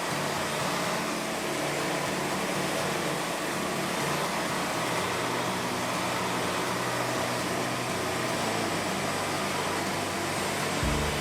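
Wood-Mizer LT40 band sawmill running, its blade cutting through a log with a steady hum. Just before the end a deeper, stronger engine hum takes over.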